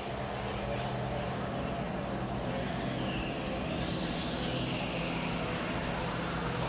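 A steady low droning rumble with a faint high wavering whine over the middle.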